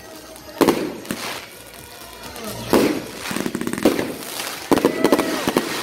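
Aerial fireworks going off: a series of loud bangs from bursting shells, each with a short ringing tail, several coming close together near the end.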